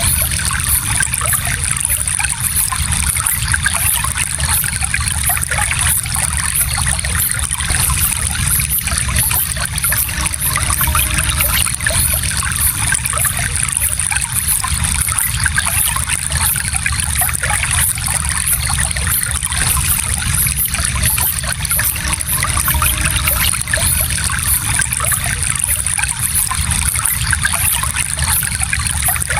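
Small stream flowing, a steady trickling and splashing with a strong hiss.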